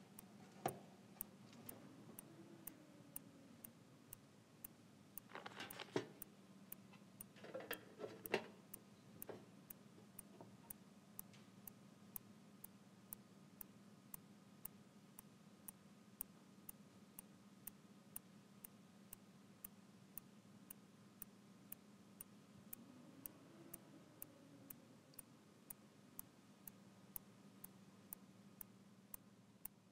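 Clock ticking steadily, about two ticks a second, faint over a low steady hum. A few louder short handling sounds come about six and eight seconds in.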